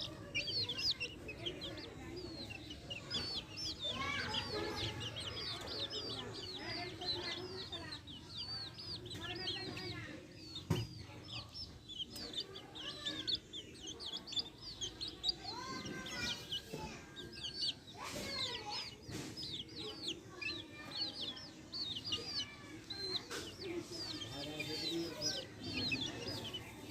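A brood of chicks peeping nonstop in short, high chirps, with hens clucking lower among them. One sharp knock sounds about eleven seconds in.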